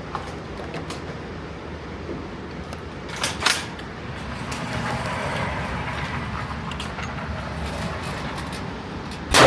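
Gunfire at a shooting range: two sharp shots about a third of a second apart a little over 3 s in, then a louder shot with a short echo at the very end, over steady range noise.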